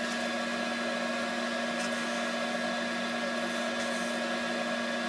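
Wood lathe running steadily at a raised speed, its motor giving a constant whine, while a cloth buffs EEE-Ultrashave finishing paste onto the spinning wooden turkey-call pot.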